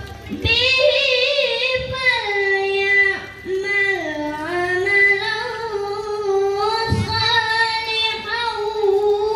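A boy reciting the Qur'an in the melodic tilawah style into a microphone, in a high child's voice holding long, ornamented notes. He pauses for breath briefly about half a second in and again about three and a half seconds in.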